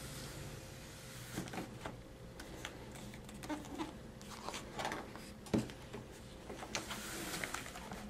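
Faint rustling and light scattered taps of a picture book's paper pages being handled and turned, over a faint steady hum.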